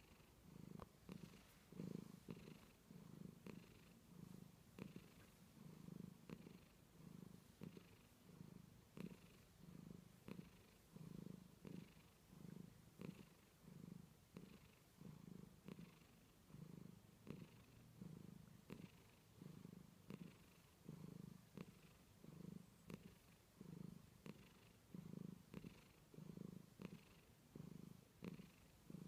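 A sleeping domestic cat purring faintly, the purr swelling and fading about once a second with each breath.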